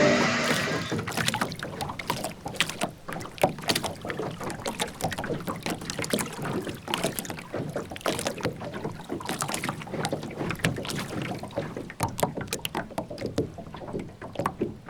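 Film sound effects of water sloshing and splashing against a boat, made up of many irregular small knocks and clicks over a soft wash of noise.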